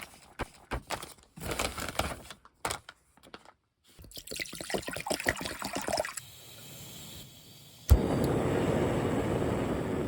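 Scattered clicks and knocks of small objects being handled, then a sharp thump and a steady rush of water.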